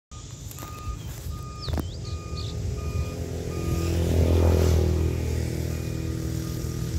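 Diesel locomotive engine of a passing parcel train, a low hum that grows louder to a peak about four seconds in and stays loud. A short electronic beep repeats steadily, about three every two seconds, and a bird chirps once early on.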